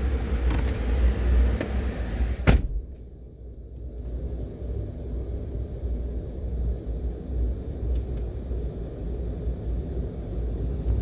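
Low, steady rumble of a car idling, heard from inside the cabin. Over the first two and a half seconds a hiss rides over the rumble, ending in a single sharp knock, after which only the muffled rumble remains.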